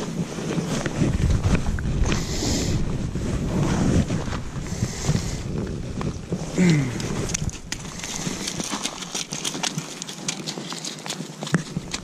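Wind buffeting the microphone, strongest in the first few seconds. From about seven seconds in it gives way to a run of sharp crunches and clicks of boots on coarse river gravel.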